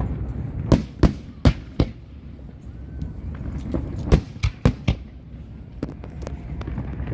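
Aerial fireworks bursting: a quick run of four sharp bangs about a second in, then another cluster of bangs around four to five seconds in, over a steady low rumble.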